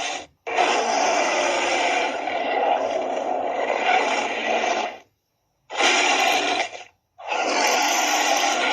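Tyrannosaurus roar sound effects: three rough, rasping roars cut apart by dead silence, a long one of about four and a half seconds, a short one just before the middle and another long one starting near the end.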